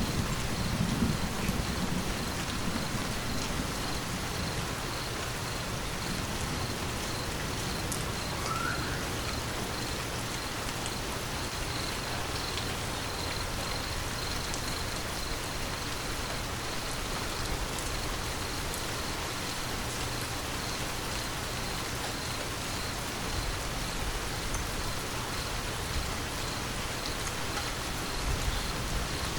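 Steady rain falling, an even hiss of drops. The low rumble of a thunderclap dies away in the first second or two, and the next rumble starts right at the end.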